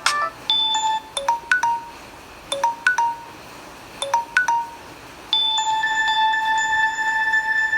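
Samsung Galaxy J2 Pro ringtone playing from the phone's speaker. Short chime-like notes come in small groups of two or three with quiet gaps between, and about two-thirds of the way in they give way to a held, ringing chord.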